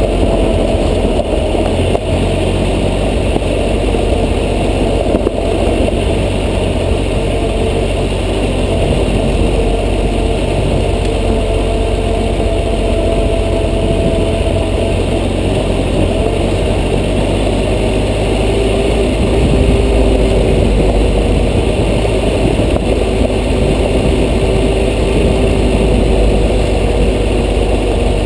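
Adventure motorcycle's engine running at a steady pace while riding a dirt road, its note drifting only slightly, over a constant low rumble.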